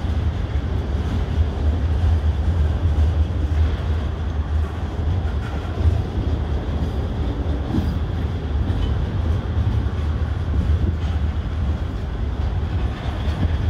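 Norfolk Southern mixed freight train's cars rolling past at speed: a steady low rumble of steel wheels on the rails, with no break or change.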